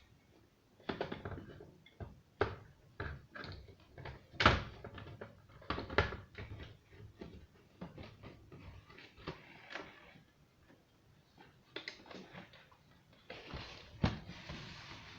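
Irregular knocks and clicks of hard objects being handled and set down, with a steady hissing rush starting about two seconds before the end.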